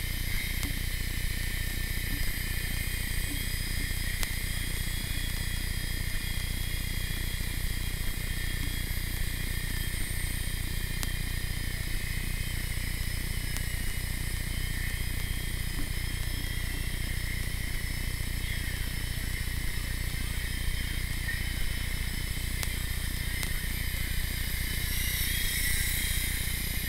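Blade mCX Tandem Rescue micro RC helicopter flying, its small electric motors and twin rotors making a steady high-pitched whine. The whine grows louder near the end as the helicopter comes close.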